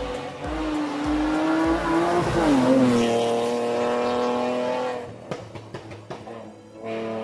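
Rally car engine on full throttle on a hillclimb, its pitch rising, then dropping sharply with an upshift about two and a half seconds in. It then pulls steadily and fades away about five seconds in.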